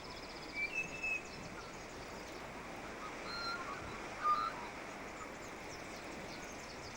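Bush ambience: a steady hiss with a few short, high bird chirps scattered through it.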